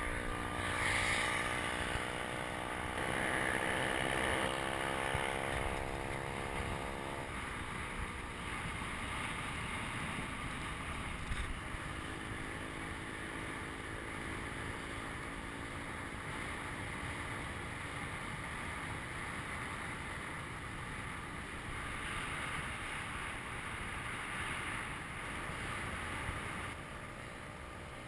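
Wind rushing over the microphone and road noise of a bicycle rolling along asphalt, with a steady droning hum underneath that is stronger for the first seven seconds and fainter afterwards.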